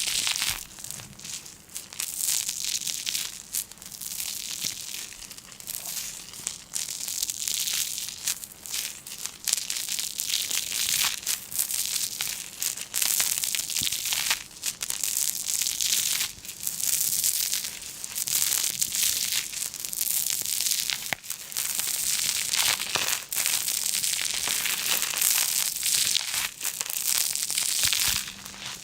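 Crinkling and crackling of a stiff material being crumpled and pressed by hand, in irregular bursts of sharp little clicks.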